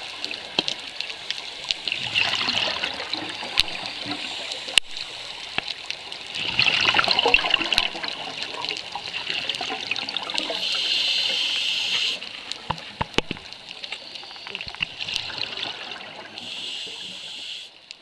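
Scuba diver breathing through a regulator underwater: bursts of bubbling and hissing air every few seconds, each lasting a second or two, with scattered sharp clicks between them.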